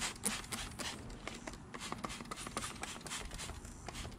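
Hand trigger spray bottle squirting cleaner onto a rusty steel bumper: a quick, irregular series of short spritzes.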